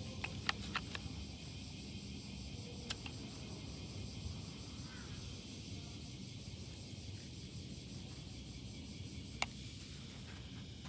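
Faint outdoor background noise, a steady low rumble with a high hiss, broken by a few light clicks in the first second, one around three seconds in and a sharper click near the end.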